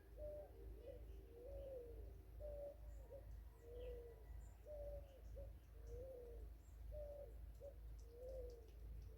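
A bird's low cooing song: a three-note phrase, a short higher note then a longer down-curving coo, repeated about every two and a half seconds, faint against soft high chirps.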